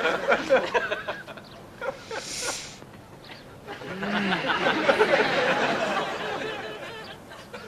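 Quiet snickering and chuckling in short broken bursts, with a brief hiss about two seconds in.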